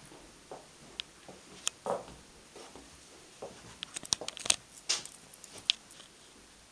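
Light handling sounds: scattered soft clicks and rustles, with a quick flurry of clicks about four seconds in.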